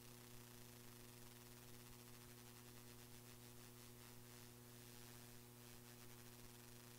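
Near silence: a steady electrical mains hum with faint hiss, the sound of the meeting's dropped-out audio feed.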